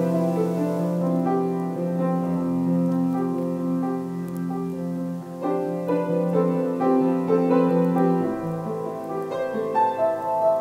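Background piano music, a slow melody of held notes over a sustained bass that moves to a lower note near the end.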